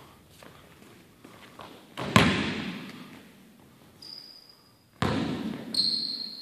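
Basketball bouncing on a gym's hardwood floor: two loud thuds about three seconds apart, each ringing out in the hall's long echo. Short high squeaks of sneakers on the floor come about four seconds in and again just before the second thud dies away.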